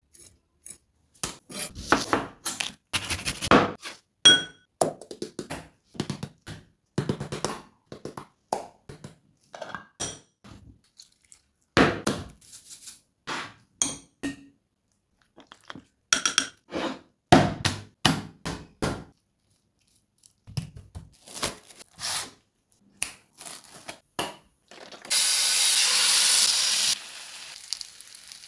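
A string of short taps, clinks and brushing sounds from a spoon against a ceramic bowl as spice powders and rice flour are added and mixed. About 25 s in, a loud steady sizzle of trevally fish slices frying in hot oil in a pan, lasting about two seconds before dropping to a quieter sizzle.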